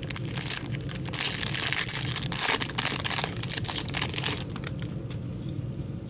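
Foil wrapper of a 2015-16 Upper Deck Series 2 hockey card pack being torn open and crinkled: a dense crackling full of sharp clicks that eases off after about four and a half seconds.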